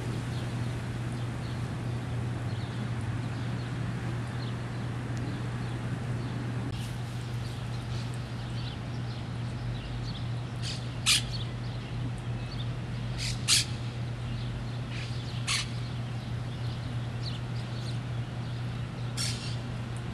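Monk parakeets giving short, harsh squawks, four loud ones spread over the second half with a few fainter ones before, over a steady low hum.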